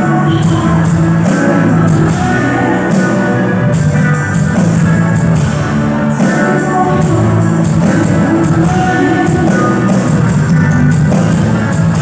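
Live rock band playing a song, with guitar prominent, loud and without a break.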